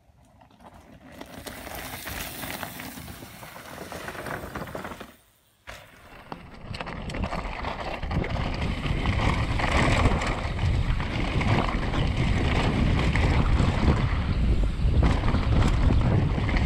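Mountain bike ridden fast down a gravel trail: wind buffeting the microphone over tyre noise and the bike's rattle. Quiet at first, it cuts out briefly about five seconds in, then runs louder and steadier.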